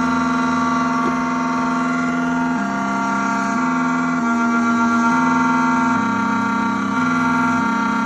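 Triton Plus key cutting machine milling a hard genuine Hyundai factory key blade at its slowed cutting speed: a steady motor whine whose pitch steps up and down every second or so as the cutter moves along the blade.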